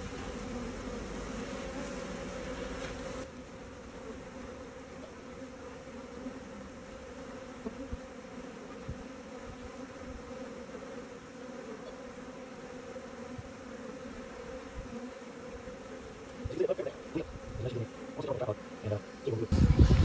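Honey bee swarm buzzing, a steady droning hum from the bees massed on the ground close to the microphone. A few knocks come near the end.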